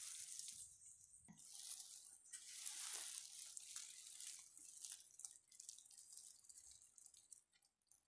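Faint patter and rustle of rain-wet leaves: a soft crackly hiss that comes and goes in stretches and drops away near the end.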